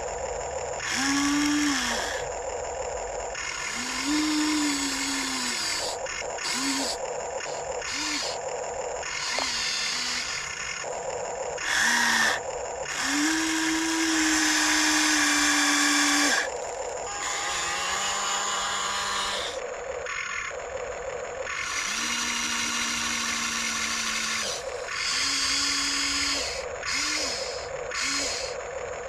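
Huina 1594 RC excavator's electric motors whining in short runs as its arm, bucket and tracks are worked, each whine rising as it spins up and falling away as it stops.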